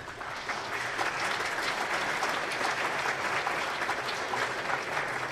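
Audience applauding: many hands clapping. It builds over the first second, then holds steady.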